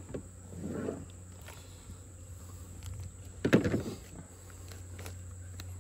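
A freshly killed hen being skinned by hand at the wings: two short rough sounds from the carcass as the skin is pulled, a softer one near the start and a louder one about three and a half seconds in, over a steady low hum.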